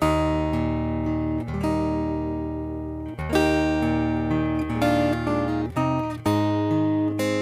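Instrumental background music of plucked string chords, each struck sharply and left to ring and fade before the next, every second or two.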